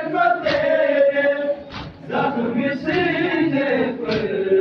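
Group of men chanting a Muharram noha (mourning lament) in unison, a drawn-out melodic line. Sharp slaps of chest-beating (matam) land every second or two.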